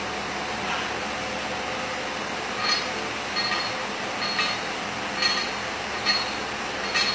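Weight plates clinking on a barbell with each repetition of an overhead lift, a short metallic clink about once a second from a couple of seconds in, over a steady background hiss.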